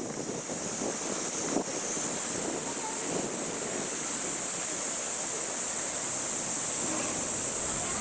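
Cicada chorus giving a steady high-pitched drone that grows slightly louder, over a low murmur of people's voices.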